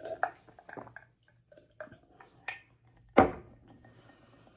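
A person eating, with small scattered clicks and mouth or handling noises, and one loud, sudden sound about three seconds in.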